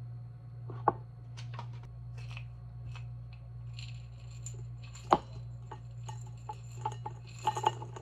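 Wooden spoon clinking against a glass tumbler as yogurt is scooped in, then granola tipped from a small glass jar rattling into the glass. Sharp clinks come about one second in and about five seconds in, with a quick run of small clinks near the end, over a steady low hum.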